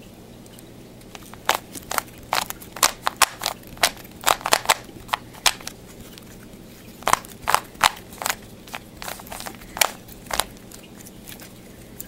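Plastic Rubik's Cube layers being twisted by hand: quick runs of sharp clicks and clacks, with a short pause about halfway and fewer turns near the end.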